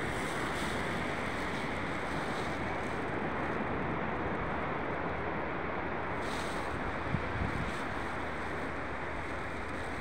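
Steady rush of ocean surf, with wind noise on the microphone.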